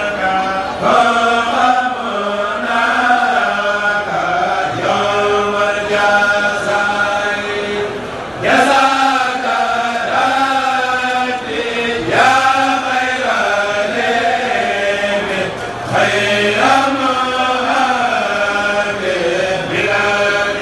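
A group of men chanting Mouride khassaid verses together over microphones, in long melodic phrases sung in unison, with a fresh loud entry every few seconds.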